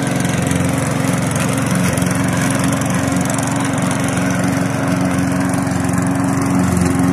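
Katana self-propelled petrol lawn mower's engine running steadily while it cuts grass.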